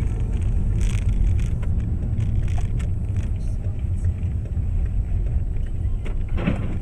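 Car driving at low speed, heard from inside the cabin: a steady low rumble of engine and tyres on the road, with a few light clicks.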